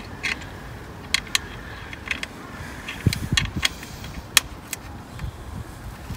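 Steel Allen key clicking against bolt heads and the plastic radiator side cover as the bolts are worked loose: a scattering of sharp, short clicks, with a few dull knocks about three seconds in.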